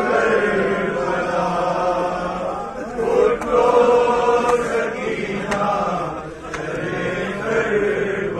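A man chanting a noha, a sung Shia lament, into a microphone in long drawn-out melodic phrases, without instruments.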